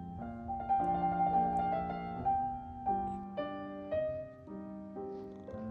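Background piano music: soft piano notes and chords changing about every second.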